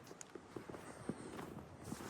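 Faint footsteps: a handful of irregular steps.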